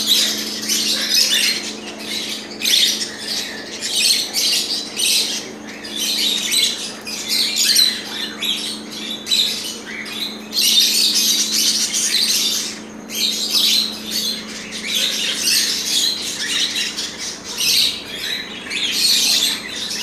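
A crowd of caged pet birds, budgerigars among them, chirping and squawking without a break, over a steady low hum.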